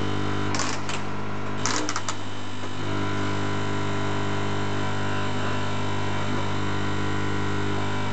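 Vibratory capsule-counting machine running with a steady buzzing hum, capsules rattling along its grooved stainless-steel feed channels. Two short bursts of sharp clicks come about half a second in and again around two seconds in.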